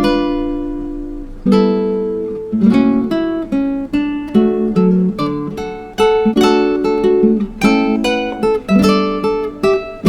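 Background music: acoustic guitar picking notes and chords that ring and fade, a fresh chord struck about every second or two.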